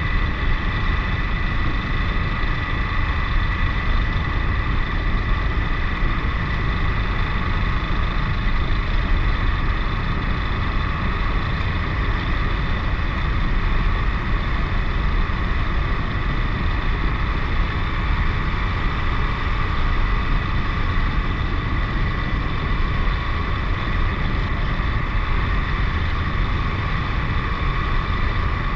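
KTM 1090 Adventure's V-twin engine running steadily while the motorcycle is ridden at an even pace.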